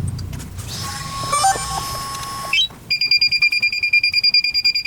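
Drone equipment powering up: a short electronic start-up tone sequence, then from about three seconds in a fast, steady electronic beeping of about eight beeps a second.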